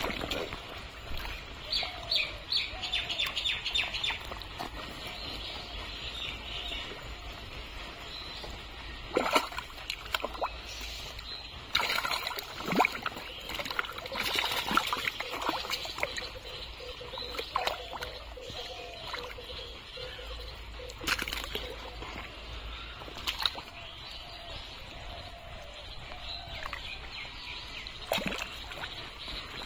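Thick muddy water sloshing and splashing as a man wades and gropes through it by hand, with sharp splashes every few seconds. Birds chirp in the background.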